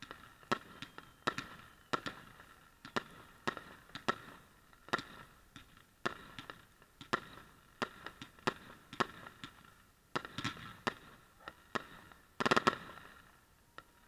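Aerial fireworks bursting overhead: a steady run of sharp bangs, a little more than one a second, with a louder flurry of bangs near the end.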